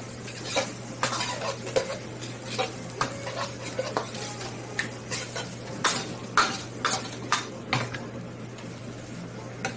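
Metal ladle scraping and knocking against a frying pan while diced squid and vegetables are stir-fried, in quick irregular strokes that come thickest a little past the middle and thin out near the end.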